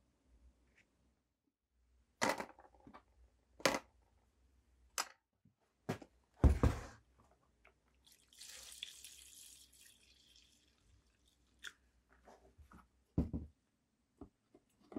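A string of sharp clicks and knocks from small rusty steel can-opener parts being handled and set down, the loudest about halfway in. Then comes about two seconds of Evapo-Rust rust remover being poured, a splashing hiss, followed by a few lighter knocks near the end.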